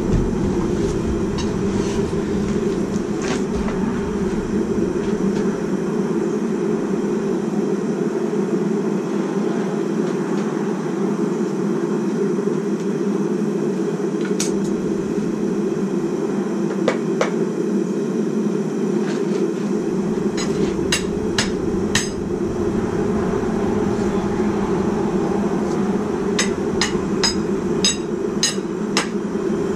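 Hand hammer striking metal on an anvil: a few scattered blows in the middle, then quicker runs of sharp strikes, the fastest in the last few seconds. A steady low noise runs underneath.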